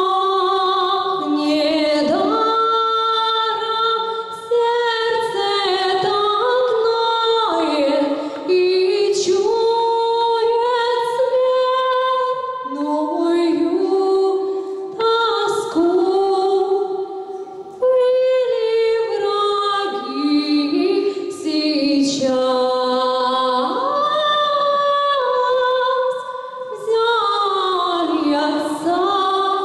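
A woman singing a cappella into a hand-held microphone: long held notes with slides between pitches, in phrases with short breaths between them.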